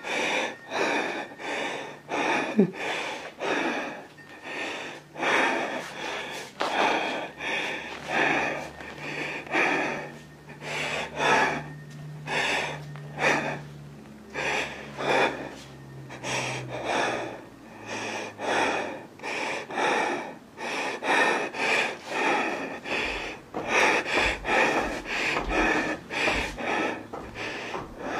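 A person breathing hard and fast close to the microphone, loud in-and-out breaths at about one a second, frightened panting.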